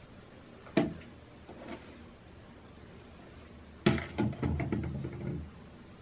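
Small hard plastic clicks from handling hair clips and Velcro rollers: a sharp click about a second in, then a louder knock followed by a quick rattle of small clicks.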